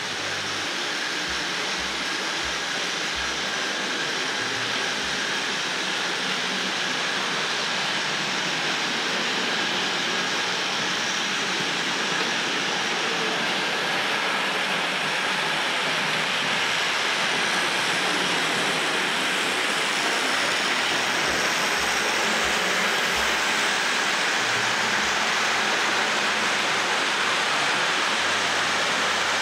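Hornby 00-gauge model train, two Class 5 locomotives pulling a rake of coaches, running on the track: a steady rushing rumble of wheels and motors that slowly grows a little louder.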